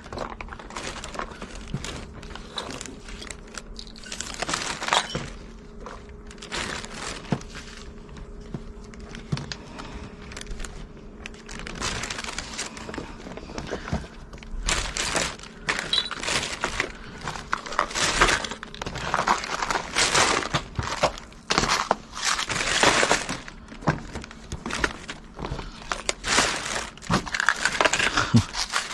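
Fishing tackle being packed away by hand: irregular rustling and crinkling of plastic bags and packaging, with knocks and clatters of gear, getting busier about halfway through.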